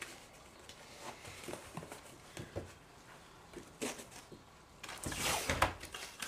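Hardboard pieces being handled on a workbench: scattered light taps and knocks, then a short, louder rasping scrape about five seconds in.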